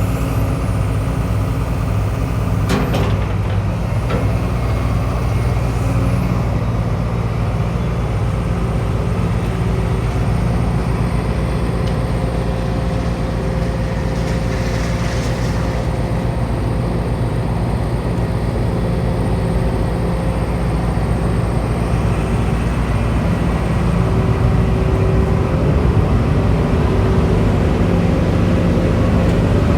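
Case CX210C excavator's diesel engine running steadily, with a sharp click about three seconds in and a brief hiss around the middle. The engine grows a little louder near the end.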